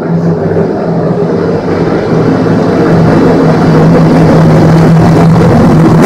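Ken Block's Hoonicorn Ford Mustang V8 running at steady revs, growing louder over the first few seconds as the car approaches and passes close by.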